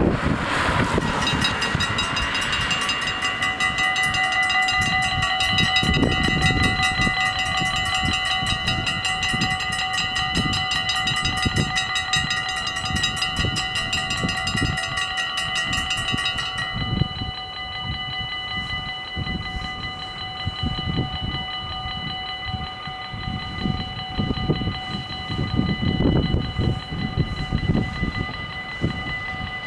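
Level-crossing warning bells ringing in fast, even strokes as the crossing's lights flash and its barriers lower for an approaching train. A bit past halfway the sharper, brighter ringing stops and a quieter steady ringing tone carries on, over an uneven low rumble.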